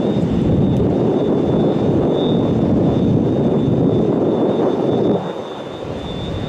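Jet aircraft engine noise: a loud, steady rushing rumble with a thin, steady high whine over it. The level drops noticeably about five seconds in.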